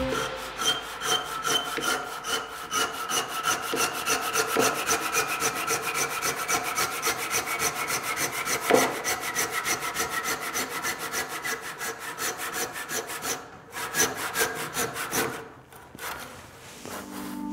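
Japanese handsaw cutting through maple in fast, even strokes, with a faint whine in the blade that slowly falls in pitch. The sawing breaks off briefly about three-quarters of the way through, then goes on with a few weaker strokes.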